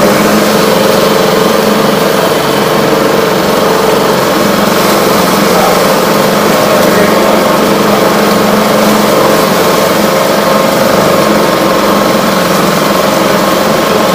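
Hidea HDF6HS four-stroke 6 hp outboard motor running steadily with its fuel supply shut off, burning the carburetor dry.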